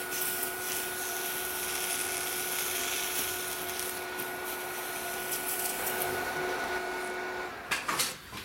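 Water poured from a plastic bottle onto a red-hot washing-machine motor pulley, sizzling into steam, over the steady whine of the induction heater. The whine stops about seven and a half seconds in, and a few knocks follow.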